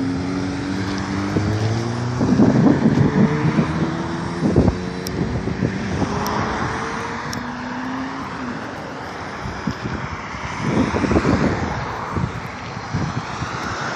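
Honda CBR600F3 inline-four sport bike engine pulling away, its pitch climbing over the first several seconds before fading, with wind buffeting the microphone.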